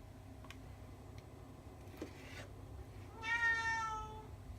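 Domestic cat meowing once, a single call of about a second that falls slightly in pitch, about three seconds in.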